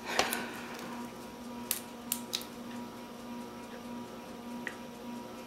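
Plastic ketchup squeeze bottle being handled: a sharp click about a quarter second in as its flip-top cap is snapped open, then a few scattered sharp clicks as the bottle is tipped and squeezed over a plastic cup.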